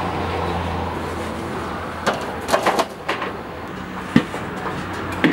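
Metal grill rack and meat being handled at a clay tandoor: a run of clanks and knocks about two seconds in and one sharp knock near the fourth second, over a steady low hum.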